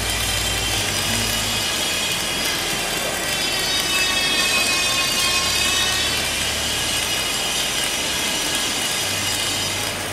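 MIG welding arc crackling steadily through a fillet weld, over the high whine of a high-vacuum on-torch fume extraction unit running, its pitch wavering slightly.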